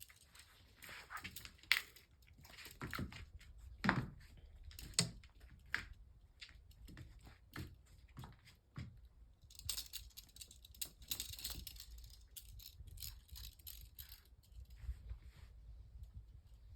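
A kitten playing excitedly with a toy: irregular knocks, scrabbling and rattling, with a few louder knocks in the first five seconds and a denser stretch of high rustling about ten seconds in.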